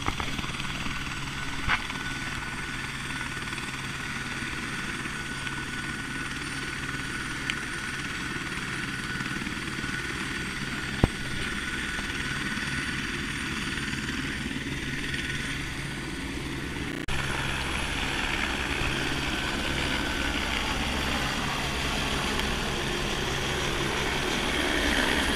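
Helicopter engine and rotors running with a steady hum. The sound grows louder about two-thirds of the way through and louder still near the end, as a helicopter flies close by.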